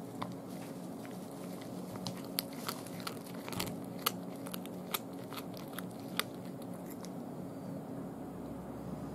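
A cat chewing a raw day-old chick: irregular sharp crunches, stopping about six seconds in.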